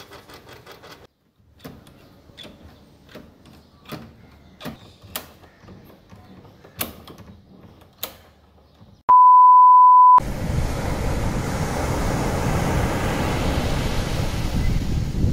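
Metal clicks and knocks of a sliding bolt latch and a lever door handle being worked by hand, then a loud steady beep lasting about a second, followed by a steady rushing noise.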